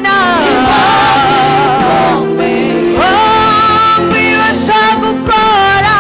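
Gospel worship song: a voice singing held, sliding notes into a microphone over steady instrumental accompaniment, in phrases with short breaks between them.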